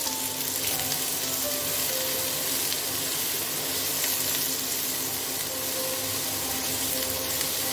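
Freshly added chopped onion sizzling steadily in hot oil and butter in a nonstick kadai as a spatula stirs it.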